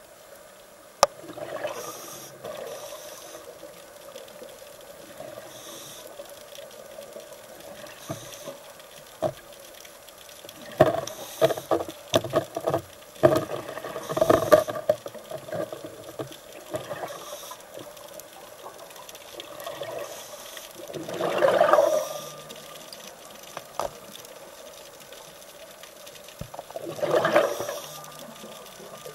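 Underwater sound of a scuba diver's exhaled bubbles: rushes of bubbling over a steady watery hiss, the loudest about three-quarters through and near the end, with scattered sharp clicks and crackles.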